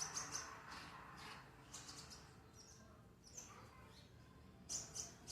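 Kolibri ninja (konin), a sunbird, giving short, high chirps and twitters in scattered bursts, busiest at the start and again near the end.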